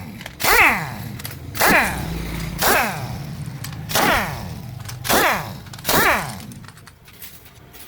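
Hammer blows on metal engine parts, six strikes about a second apart, each with a short ringing that falls in pitch.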